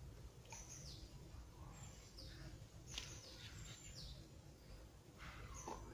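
Faint, repeated short high chirps of small birds, each falling in pitch, over a low steady background rumble.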